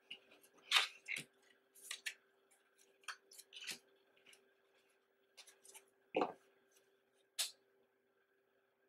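Stiff printed photo cards being handled on a table: a string of short paper scrapes and rustles as the cards are slid and squared, with a louder knock about six seconds in. A faint steady hum runs underneath.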